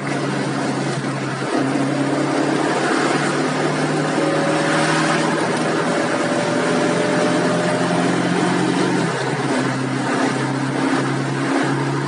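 Tofaş Doğan SLX engine heard from inside the cabin as the car drives, a steady hum over road noise. The engine note rises slowly and then changes about nine seconds in.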